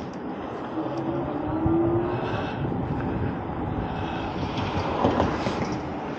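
Riding noise from an Eahora Juliet e-bike: wind rushing over the handlebar-mounted microphone and tyres on pavement, with a faint rising whine about a second in. There is a brief louder bump about five seconds in, as the bike rolls from the road onto the concrete path.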